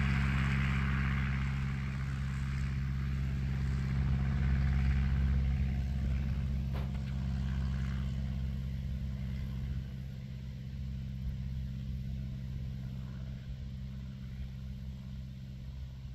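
Kitfox STi light aircraft's engine and propeller running at a steady speed, fading as the plane moves away across the sand.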